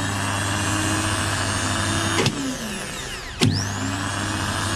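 Hitachi starter motor spinning with a steady high whine. About two seconds in it is switched off with a click and winds down. About a second later it is switched on again with a click and spins back up to speed.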